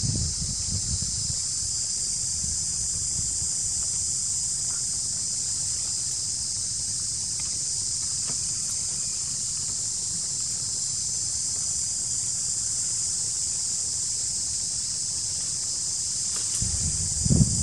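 Steady high-pitched drone of a forest insect chorus, with wind rumbling on the microphone underneath; a stronger gust of wind noise comes in near the end.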